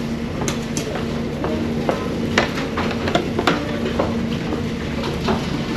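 Light clicks and clinks of plates and serving utensils at a buffet counter, scattered and irregular, over a steady low machine hum.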